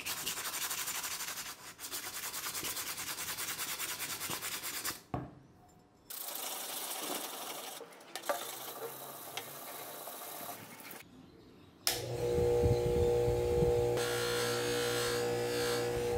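Steel wrench rubbed back and forth on sandpaper by hand, a dense scratchy rasp of quick strokes that turns quieter partway through. About twelve seconds in, a steady motor hum sets in from a bench buffer spinning a cloth polishing wheel.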